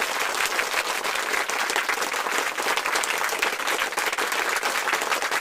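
Crowd applauding: dense, steady clapping of many hands.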